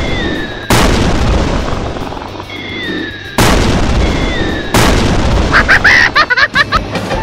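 Dubbed-in missile sound effects for a toy rocket-launcher truck: a short whistling glide cut off by a loud explosion boom, three times over. The last boom is followed by a quick stuttering run of short bursts.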